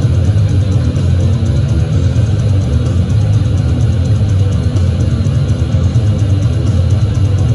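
Heavy metal band playing loud: electric guitar through a Marshall amplifier over a heavy low end, with a fast, steady beat of cymbal strokes.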